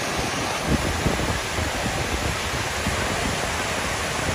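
Steady rush of water cascading down the stone walls of the 9/11 Memorial reflecting pool fountain into the pool below.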